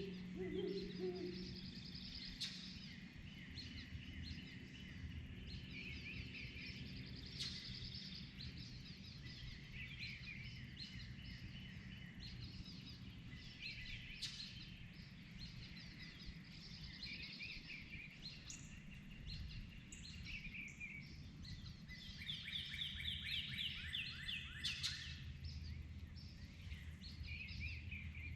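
Dawn chorus: several songbirds singing at once in overlapping phrases and trills, with a denser burst of fast trills near the end, over a steady low background rumble.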